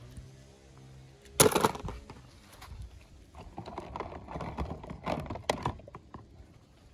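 A die-cast toy car dropped into a tub of soapy water, with one sharp splash about a second and a half in, followed by faint, irregular sloshing as a hand moves the cars about in the water.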